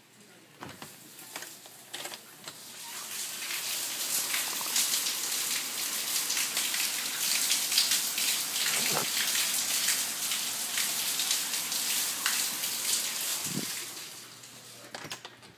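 Heavy rain falling. It swells to a loud, steady hiss a few seconds in, holds, then eases off near the end, with separate drops pattering at the start and end.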